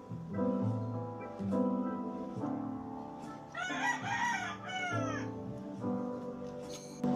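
Soft instrumental background music, its notes changing about once a second. About three and a half seconds in, a rooster crows once: a call of about a second and a half that rises and then falls in pitch.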